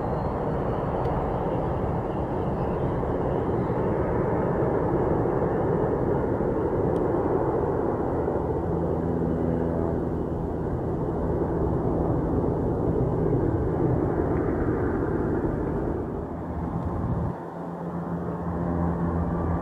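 Boeing 747-8's four GEnx turbofan engines rumbling steadily as it climbs away after takeoff. After a brief dip near the end, the steady low drone of a four-engine turboprop on approach takes over.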